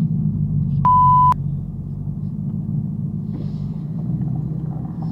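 Supercharged Ford Coyote 5.0 V8 running low and steady, a deep rumble as the car rolls slowly after the race. About a second in, a single steady half-second beep, like a censor bleep, cuts over it.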